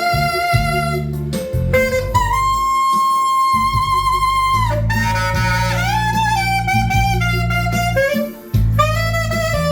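Saxophone playing a melodic line with scooped and bent notes and one long held note in the middle, over a backing track with bass. The horn is being play-tested just after a repair.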